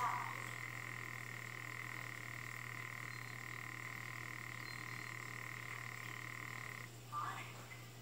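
African clawed frog calling underwater: one long, even call with its energy around 1 to 2 kHz that stops abruptly about seven seconds in. A short burst of noise follows near the end.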